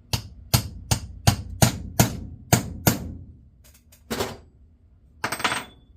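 Hammer blows peening the bent shaft post of an Ambassadeur 5501C3 reel to stop the shaft spinning: eight sharp taps at about three a second, then two longer noises near the end.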